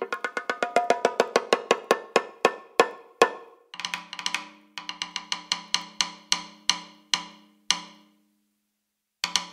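Percussion music: a wood-block-like instrument struck in a quickening roll, then slower and slower strikes that stop, with two final strikes close together near the end.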